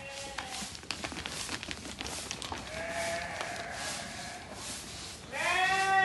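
Merino sheep bleating: a fainter bleat about three seconds in and a loud bleat near the end, with a few scattered clicks in between.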